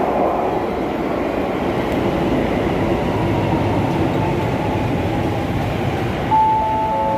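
Electric commuter train moving along the station platform: a steady rumble of wheels and running gear. Near the end a chime of held tones starts, one note and then two lower ones joining it.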